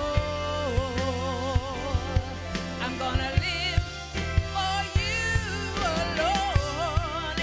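Gospel worship music: a singer holding long, wavering vibrato notes and melodic runs over keyboard chords and a drum kit keeping time.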